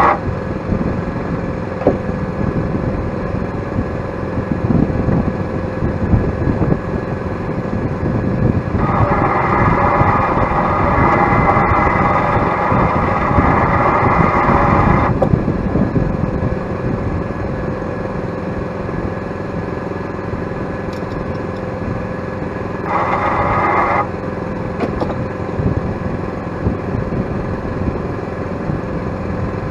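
Engine running steadily, with a louder, higher-pitched stretch of about six seconds near the middle and a second, shorter one of about a second later on.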